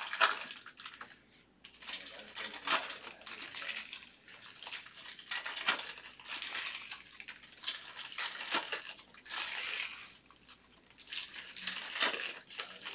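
Foil wrappers of Bowman baseball card packs crinkling and tearing as they are ripped open by hand, in irregular crackly bursts with a brief lull about ten seconds in.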